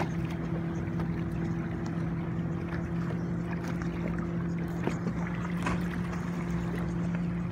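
Boat engine idling with a steady low hum, with faint noise of water and wind.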